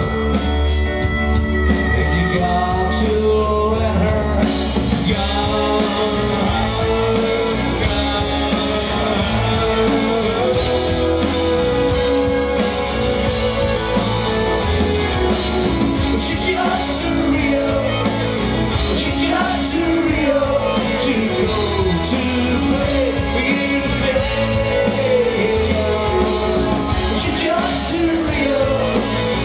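Folk-rock band playing live: strummed acoustic guitar, electric guitar, bass and drums, with a melody line that slides up and down in pitch over them.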